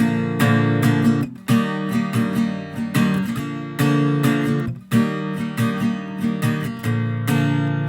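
Acoustic guitar strumming chords in a steady rhythm as an instrumental intro, with brief breaks between phrases.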